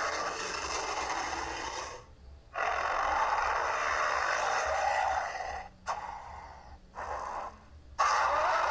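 Baryonyx dinosaur sound effects: a string of hoarse, hiss-like creature calls with no clear pitch. The longest runs about three seconds, and each cuts off abruptly with short pauses between them.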